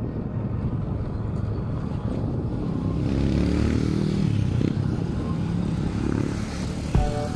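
Motorcycle engine running while riding, heard from on the bike, its pitch rising and falling with the throttle about three seconds in. Background music fades out at the start and returns near the end.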